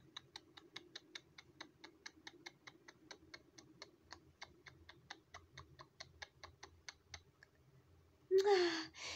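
Steady, even ticking, about four ticks a second, over a faint hum; the ticking stops near the end. A child's voice sounds briefly just after it.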